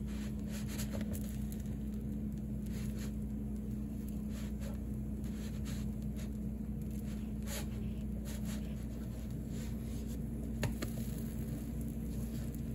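Pancake batter sizzling on an electric griddle: scattered faint crackles over a steady low hum, as a silicone spatula slides under and flips the pancakes. One sharp click comes near the end.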